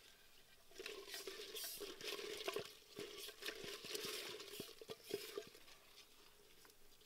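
A hand stirring and rummaging inside a clay pot of live insects: scratchy rustling with many small clicks and scrapes against the pottery. It starts about a second in and stops about five and a half seconds in.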